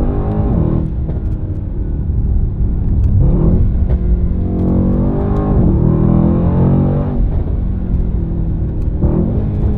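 Mercedes-AMG E63 S twin-turbo V8 engine and exhaust under hard driving. The pitch climbs and drops several times as it accelerates and comes off the throttle.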